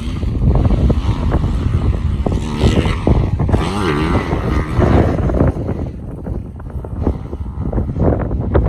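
Dirt bike engine running hard and revving up and down over rough ground, with wind buffeting the microphone.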